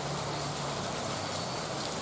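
Heavy rain falling steadily, an even hiss with faint individual drop ticks, over a low steady hum.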